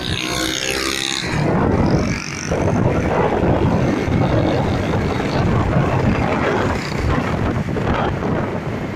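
Small motorcycle engine running steadily under way, with wind rushing over the microphone.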